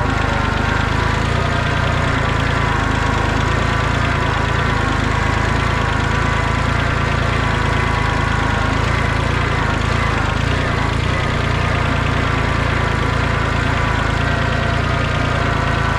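Kubota B20 backhoe's diesel engine running steadily.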